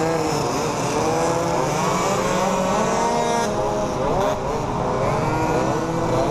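A pack of modified mopeds riding together, their small engines revving and running at many different pitches at once, each rising and falling with the throttle.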